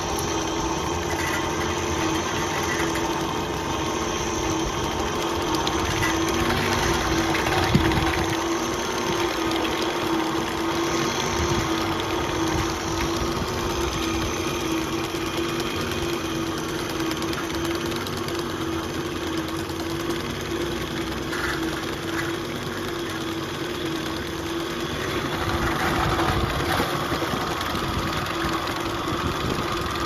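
Armortek 1:6 scale all-metal Jagdtiger model tank running as it drives over tarmac: a steady engine-like drone with a constant hum and the fine rattle of its metal tracks. A single sharp knock comes about eight seconds in, and the sound swells slightly near the end.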